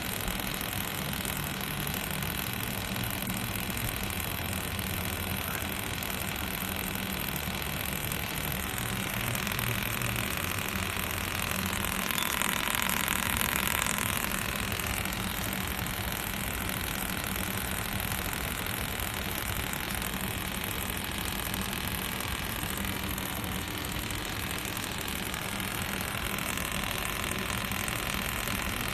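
Fiber laser welding machine running during seam welding: a steady low hum with a broad hiss over it, the hiss swelling for a few seconds in the middle.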